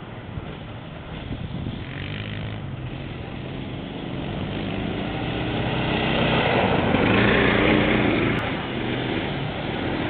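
Small engines of an off-road buggy and a quad bike running along a dirt track as they approach and pass close by. The sound swells to its loudest about seven seconds in, then eases slightly.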